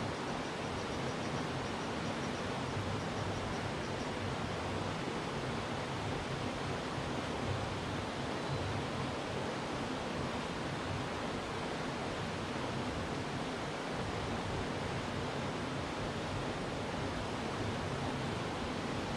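Steady rush of flowing water in a mountain stream.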